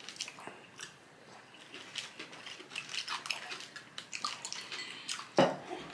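Close-up eating and drinking sounds: sips and swallows from a glass and fingers picking at a sandwich on its paper wrapper, a scatter of soft wet clicks and smacks, with one louder short sound near the end.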